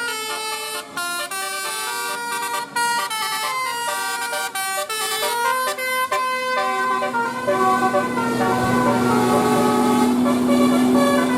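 Bus 'telolet basuri' multi-note air horn playing a quick melody of short stepped notes. About two-thirds of the way through, the tune gives way to a longer held horn sound over a steady low drone.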